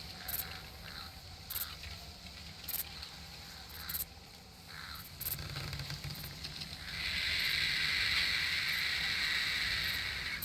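Outdoor nature ambience with a low steady rumble and scattered short clicks. About seven seconds in, a louder steady buzzing hiss sets in and lasts about three seconds.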